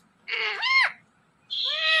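Indian ringneck parakeet calling: a short call that rises and then drops off sharply, then about a second later a longer call that slowly falls in pitch.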